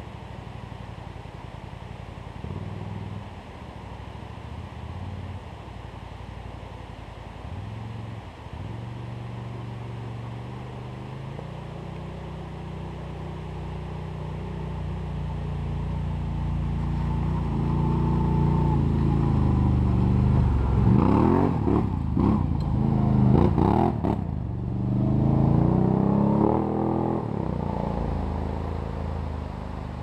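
Can-Am Outlander 800 XT ATV's V-twin engine, breathing through an HMF Swamp XL slip-on exhaust, idling steadily. It is then brought up gradually and revved hard several times, with quick rises and falls in pitch, about two-thirds of the way in, before settling back down.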